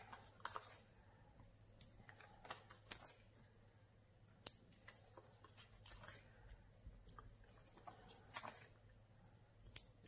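Quiet, scattered short clicks and light taps as small paper cut-outs and foam adhesive pieces are handled and pressed onto a card, over a faint steady low hum.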